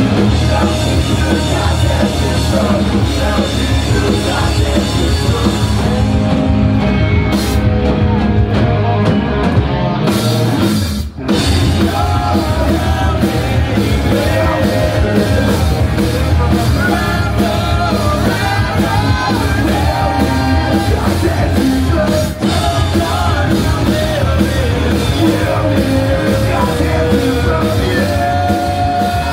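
Punk rock band playing live, with guitars, drums and sung vocals. The music drops out for a split second twice, about eleven seconds in and again around twenty-two seconds.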